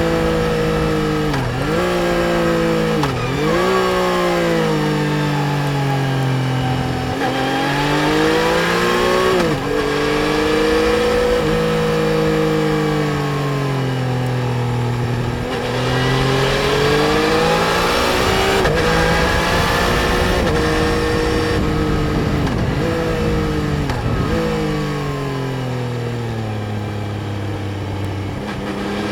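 Yamaha Tracer 900 GT's 847 cc inline three-cylinder engine under way, its revs rising and falling. Quick sharp drops in revs come about a second and a half in, at about three seconds and near ten seconds, each followed by a climb, then long smooth swells of accelerating and easing off.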